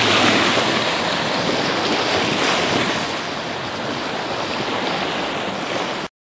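Steady rushing noise of wind and open water, cutting off abruptly near the end.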